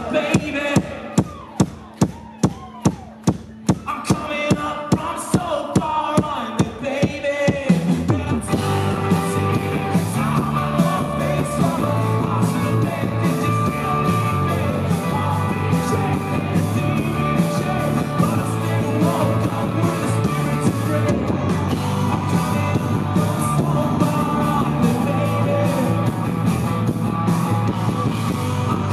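Live rock band heard from the audience: for the first few seconds a pared-down breakdown over a steady beat of about three drum hits a second, then about eight seconds in the full band crashes back in with electric guitars, drums and singing.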